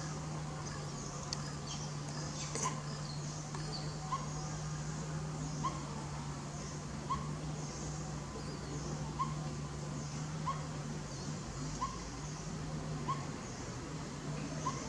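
A bird repeating a short rising call about every one and a half seconds, over a steady low hum.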